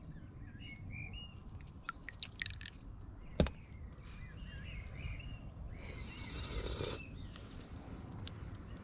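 Birds chirping outside the tent, with a few light clinks and one sharper knock about three and a half seconds in as a glass mug of tea is handled on a wooden board, and a brief rustle near six seconds.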